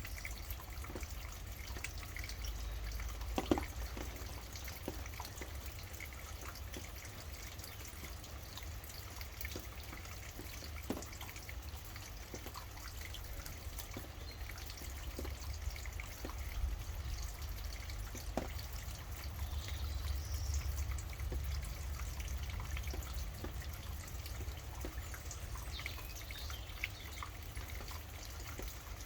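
Rain dripping: scattered single drops tapping, a few of them sharper and louder, over a steady low rumble.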